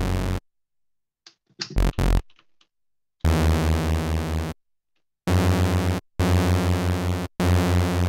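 Behringer Model D analogue synthesizer playing held bass notes on two detuned sawtooth oscillators, the low end pulsing as the out-of-phase oscillators beat against each other. There are two short blips about two seconds in, then four notes, each cut off cleanly.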